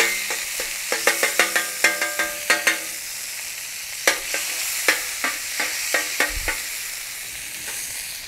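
Butter and oil sizzling on a hot stainless steel griddle plate, with a metal spatula repeatedly clinking and scraping against the plate, each strike ringing briefly. The clinks come in two flurries, in the first three seconds and again around the middle.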